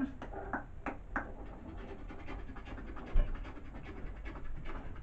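A man panting rapidly and audibly, about four short breaths a second, acted as a man being overcome by gas. A single low thump about three seconds in.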